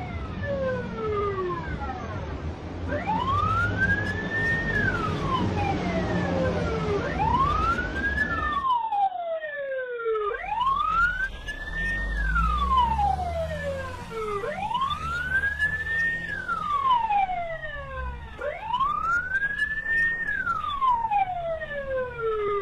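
Emergency-vehicle siren wailing, a slow rise to a high note and a longer fall, repeating about every four seconds, with fainter overlapping wails behind it. A low rumble runs underneath and cuts out briefly about nine seconds in.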